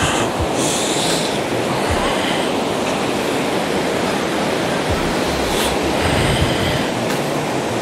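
Fast river water rushing over boulders and rocks: a steady, loud rush of water.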